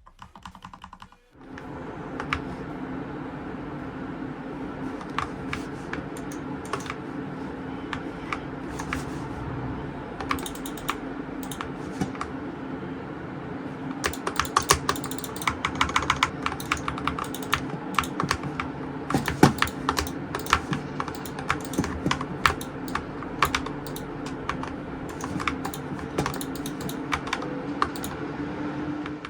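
Typing on an ATTACK SHARK X68 HE keyboard with OUTEMU White Jade magnetic switches: a steady run of keystroke clacks that starts about a second in, with denser, louder flurries in the middle.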